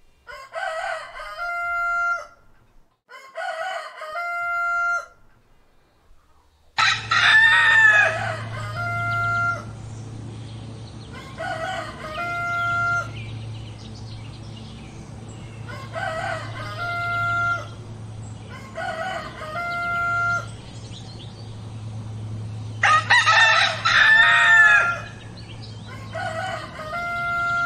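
Roosters crowing, about eight crows in all, each ending in a long held note. Two crows come in the first five seconds over a quiet background. From about seven seconds in, a steady low hum runs underneath, and the crows come roughly every three to four seconds, the first and the one near the end the loudest.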